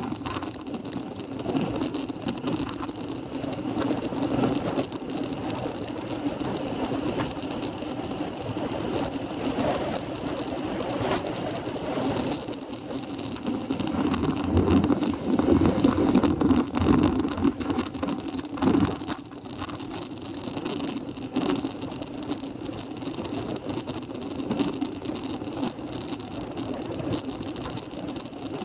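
Wind buffeting a bicycle-mounted camera's microphone on a fast road-bike descent, mixed with tyre and road noise from the asphalt. It swells louder around the middle, with occasional knocks and rattles over bumps.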